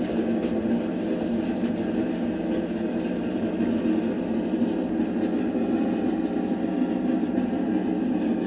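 Eggs at a rolling boil in a stainless steel saucepan on an electric coil burner, picked up through a contact mic: a steady, dense rumble with faint scattered ticks.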